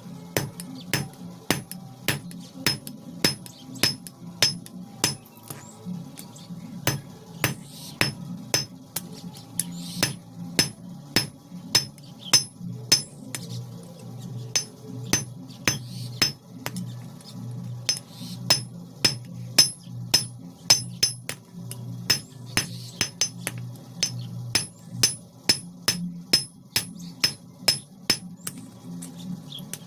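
Blacksmith's hammer striking iron on an anvil while forging a cold chisel (chheni), about two ringing blows a second with a few short pauses. A steady low hum runs underneath.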